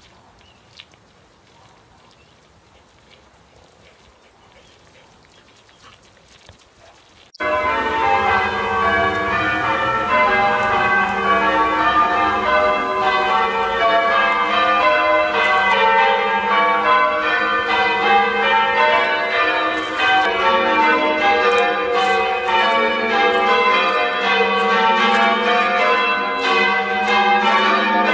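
Faint outdoor ambience for about seven seconds, then church bells start suddenly: many bells rung in quick overlapping succession, as in English change ringing.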